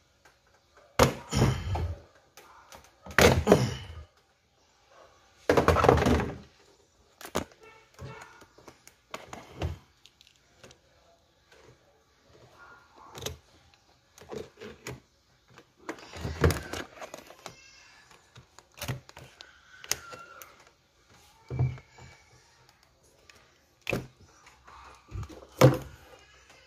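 Plastic air-intake parts of a car engine bay being worked loose by hand: the stock intake duct and air-filter box are being removed. Three loud scraping, clunking handling sounds come in the first few seconds, then scattered knocks and sharp clicks of plastic against plastic and metal.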